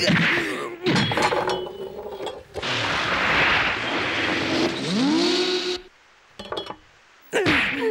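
Sharp impacts, then a motorcycle engine running hard for about three seconds, its pitch climbing near the end. A short metallic clatter follows, a kitchen knife dropping onto a wooden floor.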